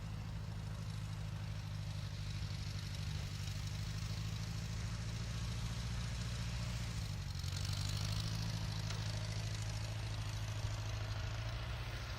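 Massey Ferguson 50 tractor engine running steadily; its note dips slightly about seven seconds in.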